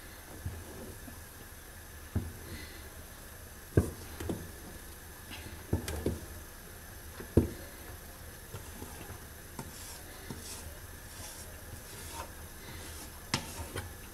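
Wooden spoon stirring a thick, cooking sesame-and-hazelnut paste in an aluminium pot, with irregular knocks of the spoon against the pot.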